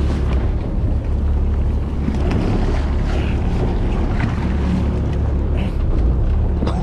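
A fishing boat's engine running with a steady low hum, under wind and sea noise.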